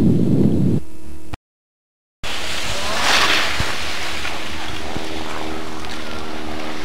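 Wind buffeting an outdoor camcorder microphone as a heavy low rumble, broken by about a second of dead silence at a cut in the tape, then a steady windy hiss with a faint machine hum and a brief louder rush about three seconds in.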